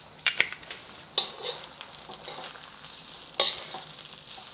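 Stainless steel tongs clacking against a steel wok a few times as they lift and toss spaghettini, the sharpest knocks near the start and again about three and a half seconds in. Underneath, the garlic butter in the wok sizzles softly over low heat.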